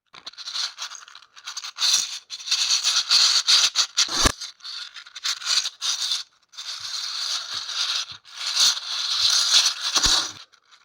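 Hard 3D-printed plastic parts rattling and scraping against each other as a print is handled, in three long stretches with brief pauses, with a soft knock about four seconds in.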